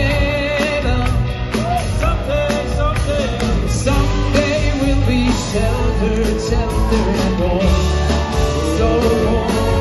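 Live Jewish band music: male vocalists singing a melody into microphones over a band with drums and bass.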